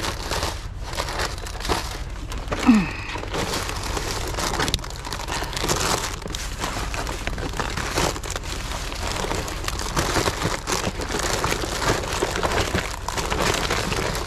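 Plastic packaging and bags crinkling and rustling continuously as packaged baked goods are handled and stuffed into a full bag, with many small clicks. A short falling tone about three seconds in is the loudest moment.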